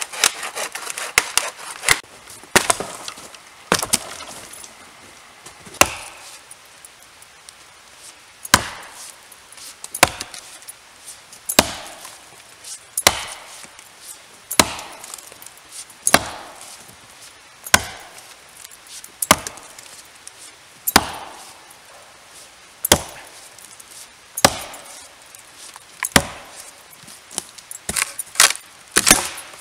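Axe chopping into a log: single sharp wooden chops, about one every second and a half, each followed by a short pause. At the start, quicker, less regular strokes come from a bow saw cutting a log.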